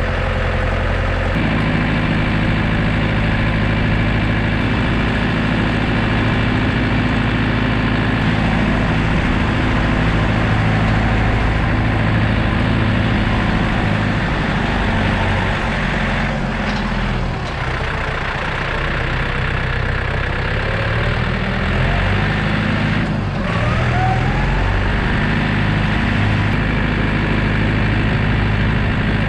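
Landini 2-55 tractor engine running steadily; about two-thirds of the way through its pitch drops, then rises again as the engine picks back up.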